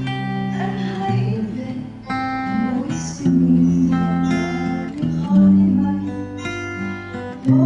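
Acoustic guitar strumming sustained chords, with a fresh chord struck every second or two, picked up by a security camera's built-in microphone.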